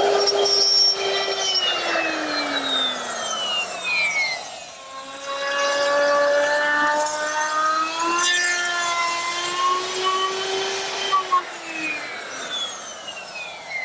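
Handheld electric router running at a steady high whine with a hiss of cutting, then switched off and winding down. It is started again about five seconds in, climbs up to speed, runs, and winds down again near the end.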